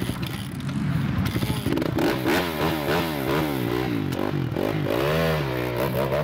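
Honda CRF four-stroke dirt bike being kick-started: a second or so of clattering, then the engine catches and is revved up and down in quick blips.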